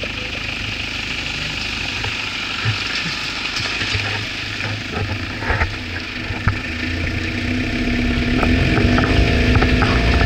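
A 4x4 pickup truck's engine running as it drives along a rough, rutted track, with a few knocks and jolts from the uneven surface. From about two-thirds of the way in the engine picks up and grows louder.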